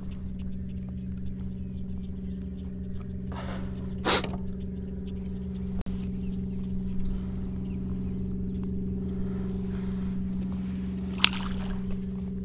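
Steady electric hum of the kayak's Minn Kota trolling motor, with a brief sharp noise about four seconds in. Near the end comes a short, louder splash as a released redfish hits the water.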